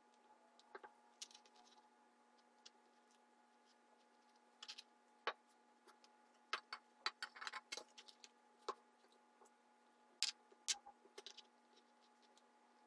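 Faint, irregular clicks and taps of hands rolling filled zucchini slices and handling toothpicks on a plastic cutting board, over a steady faint hum.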